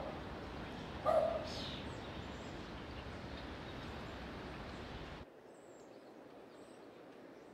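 A dog barks once, about a second in, over steady outdoor ambience. At about five seconds the ambience cuts to a much quieter background with a few faint high chirps.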